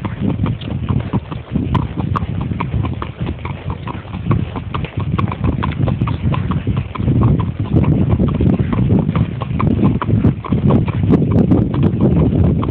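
Hooves of a ridden horse clip-clopping on a dirt and stony trail in an even rhythm, over a steady low rumble.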